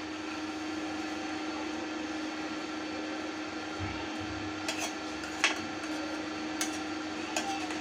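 Steel spoon stirring grated carrots in a steel kadhai, with a few sharp clinks against the pan in the second half, over the steady hum and fan of an induction cooktop running at full power.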